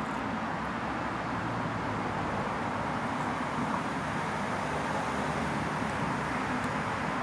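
Steady outdoor background noise: an even low rumble and hiss, like distant road traffic, with no distinct events.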